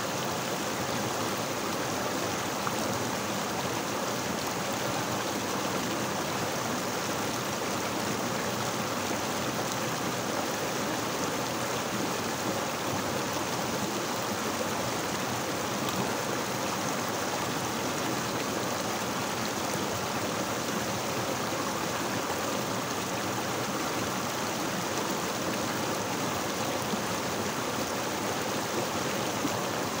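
Mountain stream rushing over and between boulders in a short cascade: a steady, unbroken water rush.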